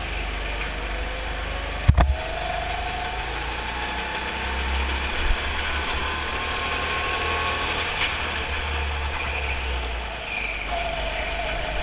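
Go-kart engine running under the driver, its pitch rising steadily over several seconds as the kart accelerates, dropping off about ten seconds in and then picking up again. A sharp knock about two seconds in.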